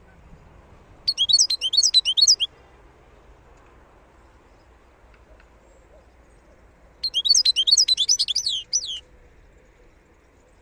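Wild European goldfinch singing: two bursts of quick, high twittering notes. The first comes about a second in and the second about seven seconds in, each lasting one to two seconds.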